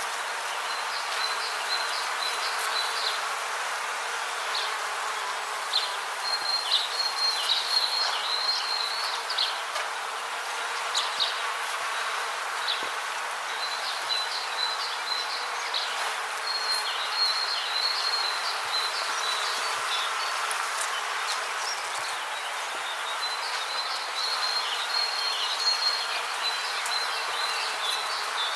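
Rainforest ambience: a steady rushing hiss under repeated high, trilled animal calls that come in phrases of a few seconds each.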